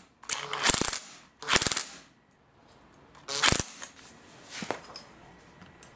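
Five short, sharp knocks and clatters, three within the first two seconds and two more further apart.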